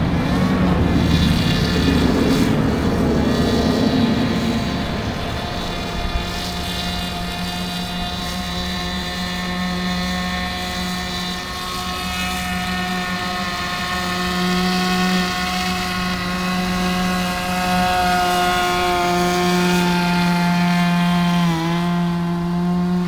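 Radio-controlled nitro airboat's small glow-fuel engine and air propeller running steadily, a continuous high buzzing drone, with a brief dip in pitch near the end.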